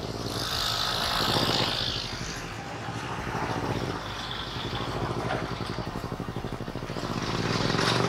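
A vehicle engine running steadily, with a hissing rush that swells about a second in and again near the end.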